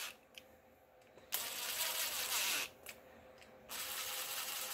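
Brushless cordless drill/driver running twice, each time for about a second and a half, driving cover bolts into a motorcycle engine. The clutch is set to its lowest torque setting, so the bolts are only run down snug before final torquing by hand.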